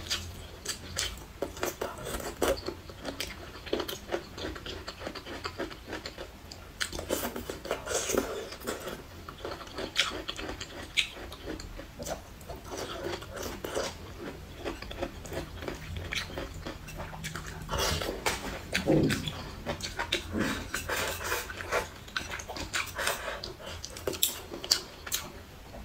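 Close-miked chewing and wet mouth smacking as a person eats, with many irregular short clicks and smacks.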